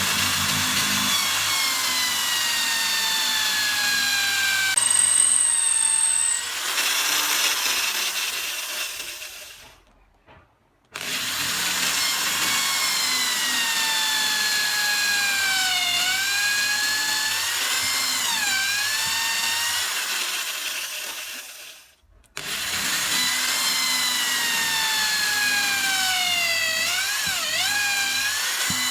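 Small electric drill boring three holes of different depths into a bamboo chopstick: three runs of motor whine, each dipping in pitch as the bit bites and recovering, with the drill stopping briefly between holes.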